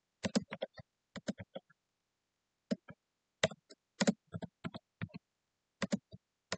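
Computer keyboard typing: irregular keystroke clicks in quick runs, with a pause of about a second around two seconds in.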